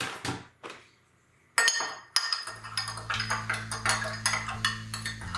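A spoon stirring baking soda into water in a drinking glass, clinking rapidly and repeatedly against the glass from about a second and a half in.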